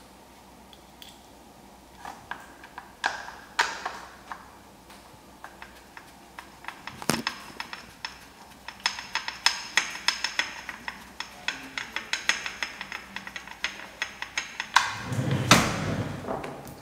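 A small ratchet with a hex bit clicking in quick, uneven runs as the controller mount's bolts are driven in and tightened, with scattered clicks beforehand. A louder thud comes near the end.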